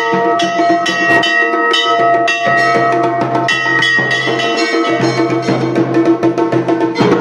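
Temple bells struck again and again, each ringing on, over Garhwali dhol and damau drumming that turns denser and faster in the second half.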